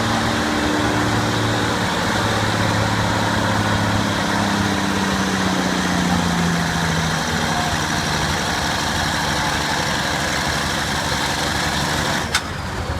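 1979 International semi truck's engine working hard under load as it pulls the weight-transfer sled, its pitch sagging slowly partway through as the load builds. About a second before the end the engine sound changes suddenly and drops in level, with a click.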